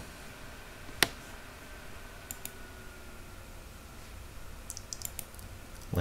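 Computer mouse clicking: one sharp click about a second in, then a few fainter, lighter clicks near the middle and toward the end, over low room hiss.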